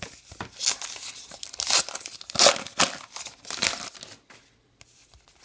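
Foil wrapper of a trading-card pack being torn open and crinkled, a run of irregular crackling rustles that stops about four seconds in, leaving only faint handling of the cards.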